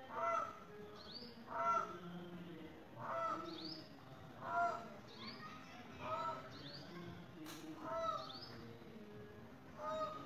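Indian peafowl calling: a short, honking call repeated about seven times, roughly every one and a half seconds. Thin, rising chirps from a small bird come in between the calls.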